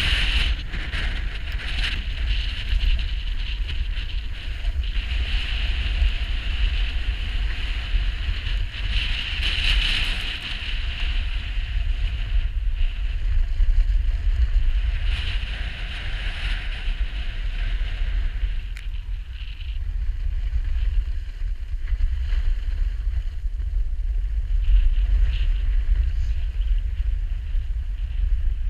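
Wind buffeting an action camera's microphone during a downhill run on snow, with the hiss of snow scraping under the skis or board swelling and fading through the turns.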